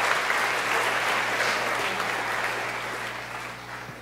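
Audience of students applauding; the clapping fades out toward the end.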